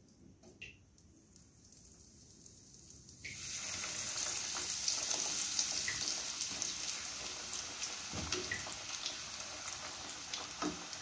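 A breaded chicken drumstick goes into hot oil in a kadai about three seconds in, and the oil starts sizzling loudly. The deep-frying then keeps up a steady hiss with small crackles, easing slightly towards the end.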